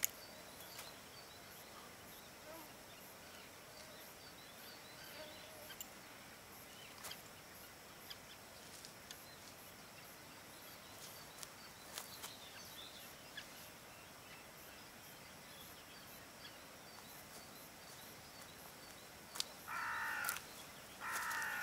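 Quiet outdoor ambience with faint high bird chirping and a few light clicks; near the end a larger bird gives two loud calls.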